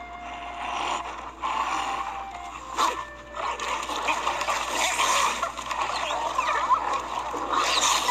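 A pack of wolves yelping and whimpering over a dense scuffling noise, with one sharp knock a little under three seconds in.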